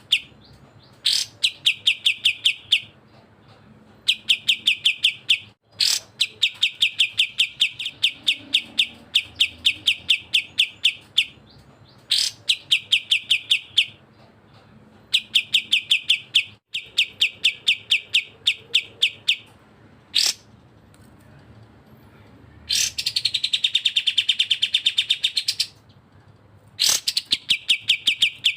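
Cucak jenggot (grey-cheeked bulbul) and kapas tembak songbirds singing in a bird-tutoring recording: bursts of rapid repeated chattering notes, several a second, each burst lasting a few seconds with short pauses between. A denser, faster trill comes a little after the middle.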